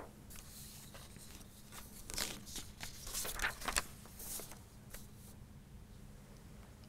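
Faint scattered rustling and small clicks in a quiet room with a low steady hum, most of them between about two and four seconds in.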